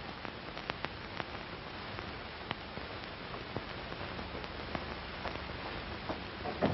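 Steady hiss with scattered clicks and pops: the surface noise of an old film print's soundtrack, with no speech or music above it.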